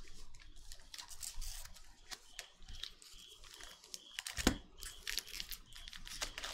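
Foil trading-card pack being handled and crinkled, with light clicks and taps of cards on a table and one sharper knock about four and a half seconds in. Near the end the foil pack begins to be torn open.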